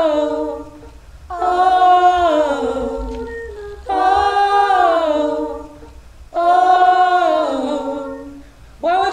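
Unaccompanied layered voices singing a held chord in close harmony, the same phrase sung about every two and a half seconds. Each phrase starts strong, then slides down in pitch and fades before the next begins.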